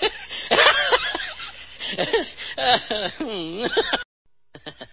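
A person laughing and giggling, in short rising and falling bursts with a drawn-out sliding voice near the end. The sound cuts out for a moment about four seconds in.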